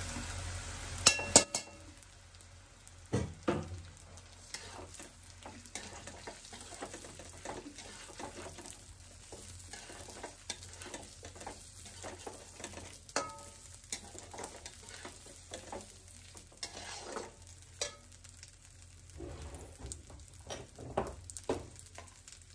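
Soaked rice frying in oil in a metal kadhai while a steel spatula stirs and scrapes it round the pan, in many short strokes. A few sharp metal clanks come in the first few seconds.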